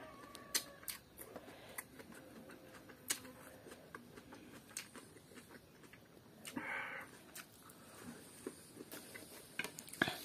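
Quiet eating sounds: scattered small clicks and soft chewing, with a short crunchy bite of fresh cucumber a little past halfway.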